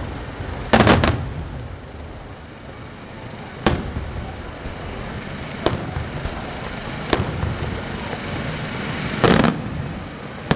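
Bruscella Fireworks aerial shells bursting overhead: sharp bangs every second or two, with a close pair about a second in and another cluster near the end, and a low rumble between the bangs.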